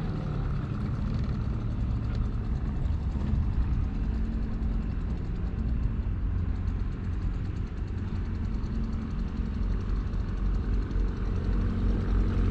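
Outboard motor idling steadily, a low hum, as the boat moves slowly off its berth.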